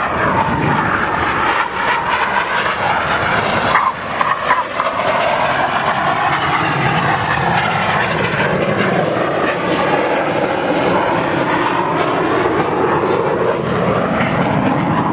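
Jet noise from the Red Arrows' BAE Hawk T1 trainers flying past, with a sweeping, phasing hiss as the aircraft move across.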